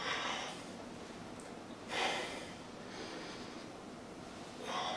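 A man breathing hard from the effort of holding a boat-pose core exercise, with a short, hissy breath about every two seconds.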